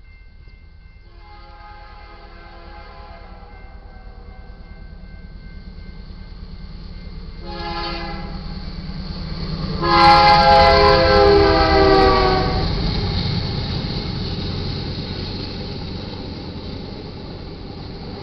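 A BNSF GE Dash 9-44CW locomotive's horn sounding for a grade crossing: a long blast, a short one, then a loud long blast as the locomotives reach the crossing. The rumble of the train grows under the horn and carries on as the auto-rack cars roll past.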